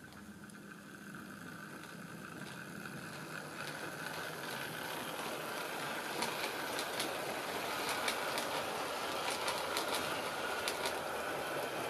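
Hornby B17 OO-gauge model locomotive, tender-driven, running along the layout track hauling its coaches. A steady rolling rumble and motor hum grows louder throughout, and from about halfway sharp clicks come as the wheels pass over the rail joints.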